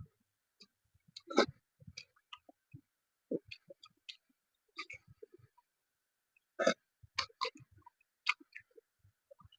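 Eating sounds up close: a person chewing, with irregular wet smacks and clicks of the mouth. There is a louder smack about a second and a half in and a cluster of louder ones a little past two-thirds of the way through.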